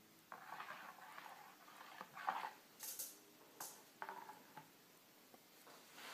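Spoon stirring and scraping in a bowl of jelly mixture in short strokes, with two sharp clicks of the spoon against the bowl in the middle.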